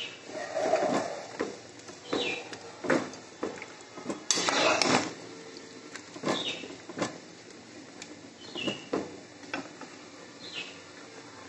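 Metal spoon scraping and clinking against the sides of a large aluminium cooking pot as a thick chicken curry is stirred, in irregular strokes with a louder scrape about four seconds in.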